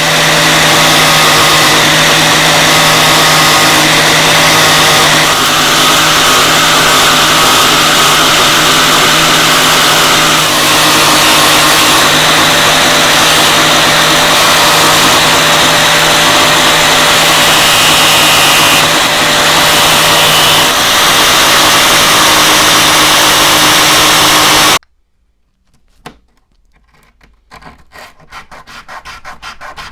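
An electric power tool runs steadily with a constant motor hum and the hiss of abrasive work on the workpiece, then cuts off abruptly a few seconds before the end. After a brief pause, quick repeated rubbing strokes begin, like hand sanding.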